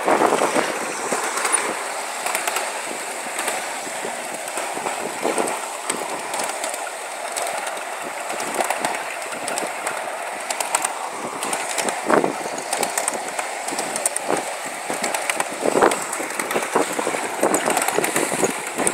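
Ride-on 1-inch-scale miniature railway train rolling along its track: a steady rolling rumble of small wheels on the rails, with scattered clicks and knocks over the rail joints.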